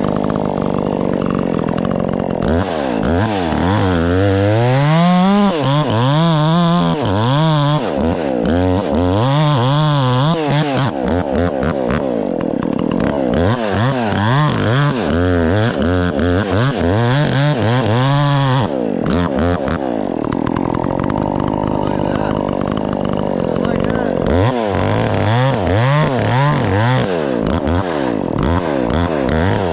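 Two-stroke chainsaw running and cutting wood, its engine pitch repeatedly rising and dropping as it revs out and loads up in the cut, with a steadier stretch about two-thirds of the way through.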